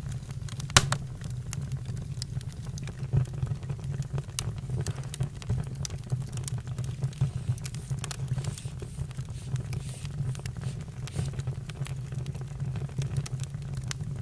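Campfire burning with a steady low rumble and irregular wood crackles, one sharp pop about a second in.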